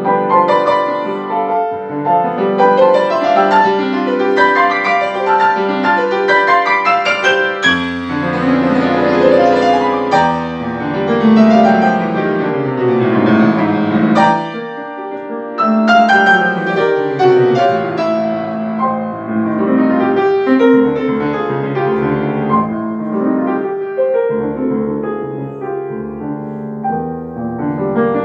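Grand piano played solo: fast, pedalled classical passage-work, with runs sweeping up and down the keyboard.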